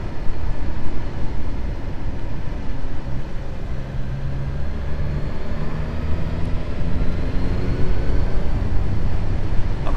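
Suzuki GSX-S1000GT's inline-four engine running at road speed under wind and road noise, heard from the rider's helmet. Its note rises in a few steps.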